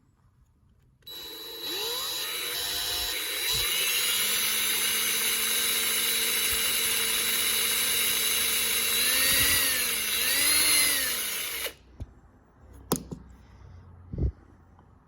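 Electric drill running with a bigger bit to drill out the rivets of a diecast toy car. The whine starts about a second in, sags in pitch twice as the bit bites into the rivet, then stops suddenly, followed by a couple of light clicks.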